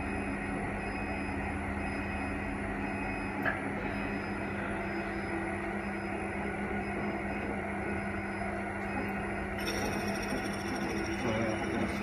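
CNC lathe with live tooling running a machining cycle with the feed-rate override at 60%: a steady machine hum with a constant low tone, a small tick about three and a half seconds in, and a brighter hiss joining near the end.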